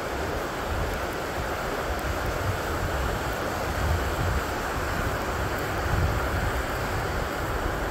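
Steady rushing of a mountain river, with irregular low thumps about once a second.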